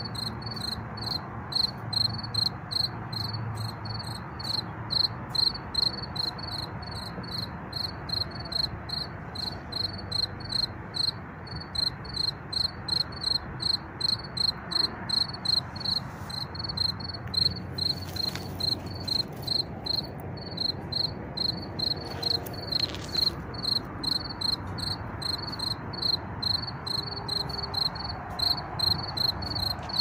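Field cricket chirping in an even, unbroken run of short, high chirps, about three a second. Under it lies a low background of distant traffic and wind noise.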